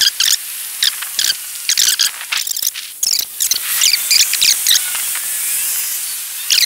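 Outdoor street sound from a walk, sped up twelvefold, so it becomes a steady high hiss full of quick, irregular high-pitched chirps and chittering.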